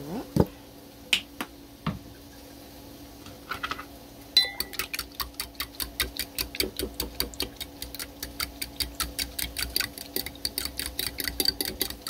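A fork beating eggs and milk in a bowl, clicking against the bowl in a quick, steady rhythm of about six strokes a second that starts about four seconds in. Before that there are a few single knocks.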